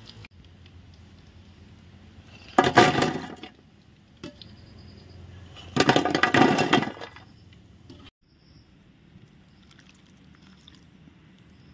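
Two loud bursts of hot-oil sizzling and crackling, each about a second long, the first about two and a half seconds in and the second about six seconds in, from chicken pieces frying in oil.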